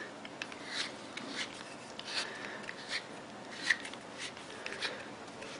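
Light, irregular scrapes and ticks of a cylinder head being screwed by hand onto an airsoft rifle's cylinder: metal threads turning and fingers rubbing on the parts.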